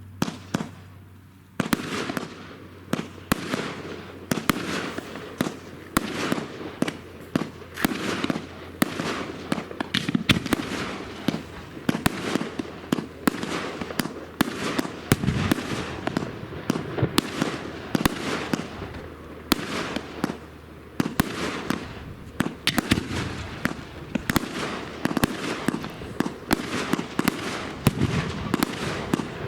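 Firework cake (battery) firing: a rapid string of launches and bangs, several a second, starting about a second and a half in and keeping on without a break.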